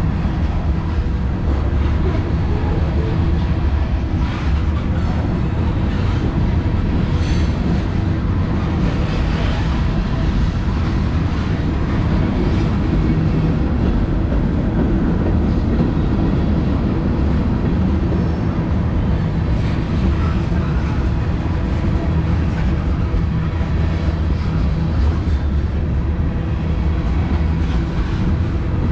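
Freight cars of a mixed manifest train rolling past: a steady rumble of steel wheels on rail, with a brief sharp sound about seven seconds in.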